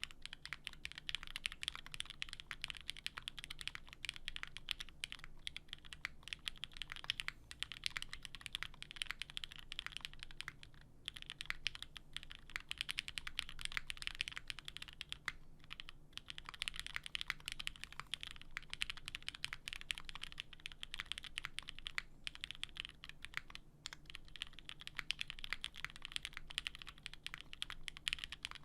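Steady, continuous typing on a custom mechanical keyboard with stem-lubed Cherry MX Black linear switches and GMK keycaps: a dense stream of key clacks, with brief pauses about 11 and 16 seconds in.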